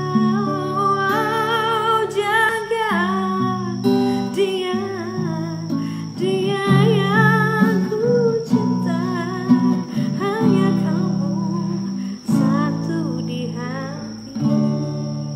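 Acoustic guitar strummed in chords, with a woman singing a slow melody along with it.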